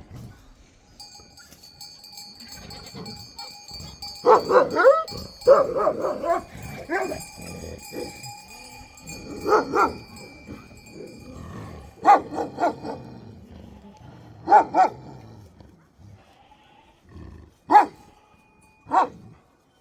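A dog barking in short runs of loud barks with pauses between them, ending with two single barks. A faint steady high tone sounds underneath through the first half.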